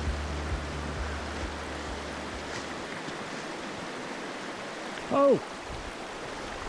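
Mountain trout creek flowing: a steady rush of water.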